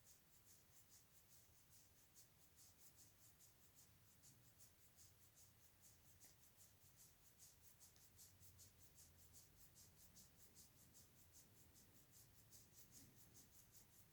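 Very faint, steady patting or rubbing on a dog's back to burp it: soft scratchy strokes on fur, about three or four a second.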